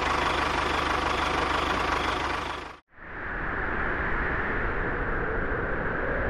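Small engine running steadily with a fast, even rhythm. It cuts off abruptly about three seconds in and is followed by a duller, steady running sound with less hiss.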